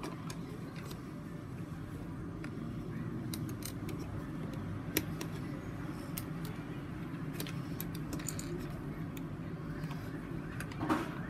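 Plastic Lego bricks clicking and knocking as they are handled and pressed onto the model, a scattering of small sharp clicks over a steady low hum. The sharpest click comes about five seconds in, and a louder knock near the end.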